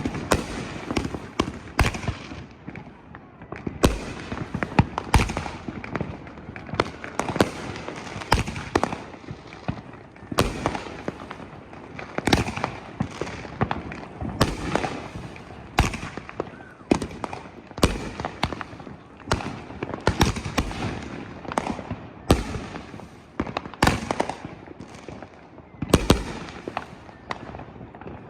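Consumer multi-shot fireworks cake, the "Neon Blaster", firing in sequence: a rapid string of sharp launch reports and aerial bursts with crackling, about one loud bang a second.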